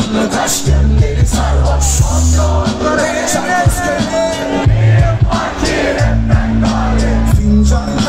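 Live hip-hop concert music played loud through a PA: a beat with heavy, repeating bass notes and drum hits, with voices singing over it in the middle.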